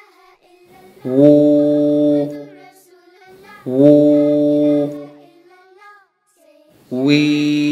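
A voice chanting Arabic letter syllables, each long vowel held steady for over a second: three drawn-out syllables, the madd vowels stretched to the length of one alif.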